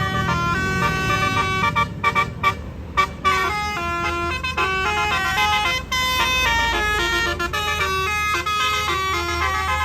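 Tour bus's 'telolet basuri' multi-trumpet musical air horn playing a quick tune of stepped notes, several sounding together, broken into short stabs about two to three seconds in, over the steady low hum of the bus engine.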